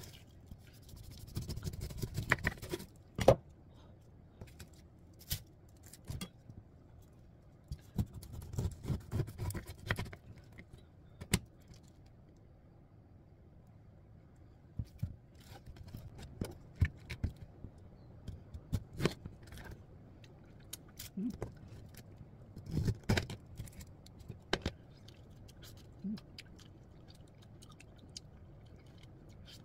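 Knife cutting through a pineapple's hard rind on a cutting board: short stretches of sawing and scraping with scattered sharp knocks of the blade and fruit against the board.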